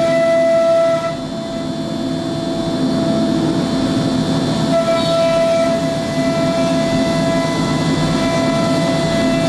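MultiCam 5000 Series CNC router's spindle cutting sheet stock, a steady high whine that breaks off about a second in and comes back near five seconds, over a continuous low machine rumble.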